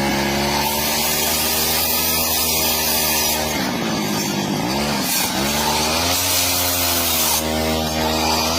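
A power tool's motor running on wood, its pitch sagging and recovering in the middle and rising again near the end, as the load on it changes.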